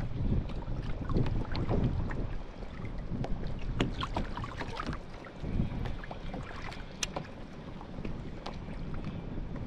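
Water lapping and slapping against a fishing kayak's hull, with wind on the microphone and scattered small clicks and knocks.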